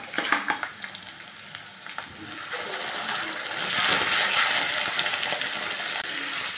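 Spice-marinated meat going into hot oil in a metal kadai, sizzling and frying as it is stirred with a spatula. There are a few metal knocks in the first couple of seconds, and the sizzle grows louder from about three seconds in.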